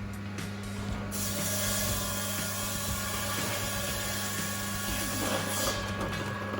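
Five-blade ice-cutting machine's blades grinding through a block of ice over a steady motor hum. The harsh cutting noise starts about a second in and stops shortly before the end.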